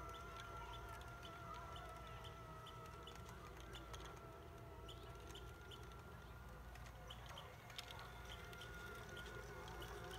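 Kangaroo AB electric golf caddy's drive motor whining faintly and steadily as it drives itself across the grass, a little weaker in the middle and stronger again near the end as it comes closer. A short high chirp repeats about three times a second behind it.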